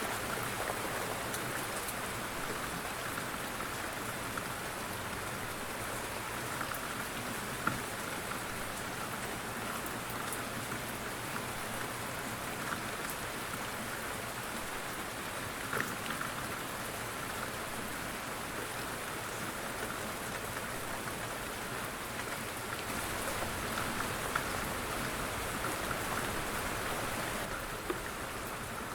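Steady light rain falling, an even patter with scattered individual drop taps.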